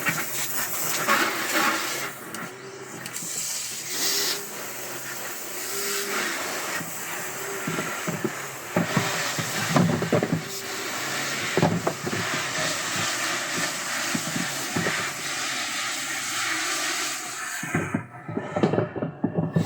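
Pigeons cooing over and over, a low rising-and-falling coo about once every second or two, over a steady hiss with scattered short knocks and flutters.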